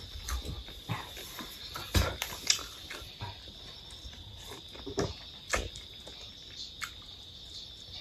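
Eating sounds: a few short slurps and clinks as chicken soup is sipped from a stainless steel bowl, the sharpest about two seconds in and again around five seconds. A faint steady high tone runs underneath.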